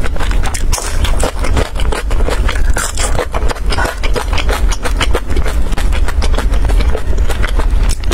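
Close-miked chewing of saucy, glazed grilled food: fast, irregular wet mouth clicks and smacks with no pause. A steady low hum runs underneath.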